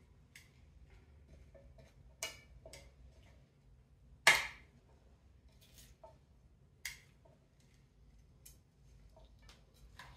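Metal salad tongs clicking and tapping against a serving platter as salad is tossed: a string of separate sharp clicks a second or two apart, the loudest about four seconds in.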